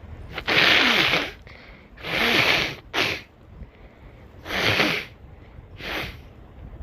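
A person sneezing again and again: five separate bursts, three longer ones and two short ones near the end.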